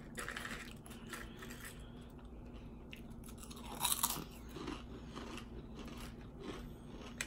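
Close-miked chewing and crunching of potato chips, with a louder crisp crunch of a bite about four seconds in.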